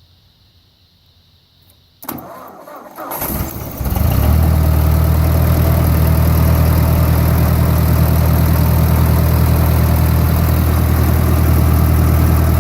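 1958 Ford tractor engine, choked, cranked by a starter fed straight from the battery through a jumper cable that bypasses a bad starter solenoid. It cranks for about two seconds, catches, and then idles steadily and loudly.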